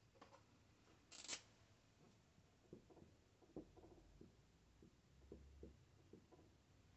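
Faint sounds of a dry-erase marker writing on a whiteboard: a brief scrape about a second in, then a scatter of light ticks and short strokes as the letters go on.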